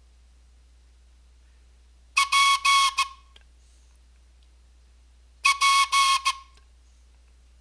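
Morse code sounded on a blown whistle: two quick groups of about four short blasts each, one about two seconds in and the other about five and a half seconds in.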